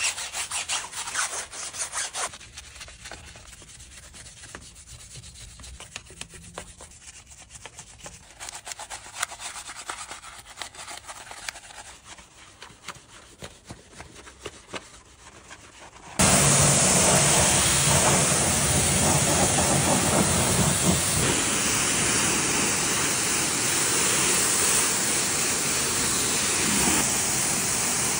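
A brush and then a wash mitt scrub a soapy car wheel and tyre in quick rubbing strokes. About halfway through, a pressure-washer jet starts spraying against the car's side with a loud, steady hiss.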